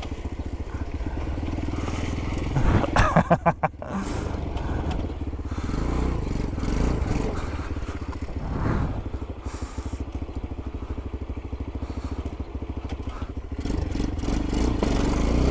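Small ATV engine running under way, with a short loud burst about three seconds in and the engine sound growing louder near the end.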